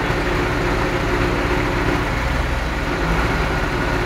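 Heavy truck diesel engine idling steadily, a low even hum.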